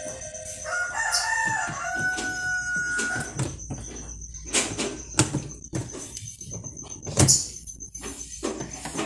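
A rooster crowing once for about two and a half seconds, followed by a series of sharp knocks and taps, the loudest about seven seconds in.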